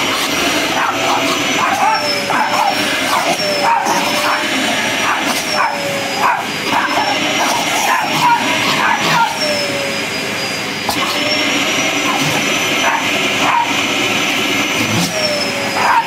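A canister vacuum cleaner runs with its motor whine slowly wavering up and down in pitch while a boxer bites at the hose nozzle. Over it, dogs bark and yip excitedly many times in quick succession.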